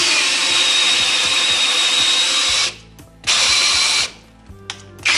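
A drill press boring into a 2x4 with a 3/4-inch three-flute auger bit: a loud grinding cut with a high whine, which stops about two and a half seconds in, resumes briefly, and starts again near the end. The bit cuts fast once its screw tip has caught in the wood.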